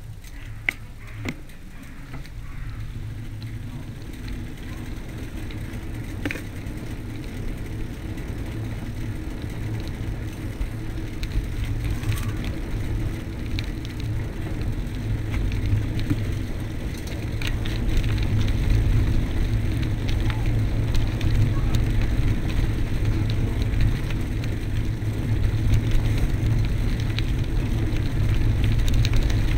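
Bicycle ridden along a rough dirt track, heard through a bike-mounted camera: a steady low rumble of tyres and wind on the microphone, louder from about halfway, with scattered clicks and knocks from bumps.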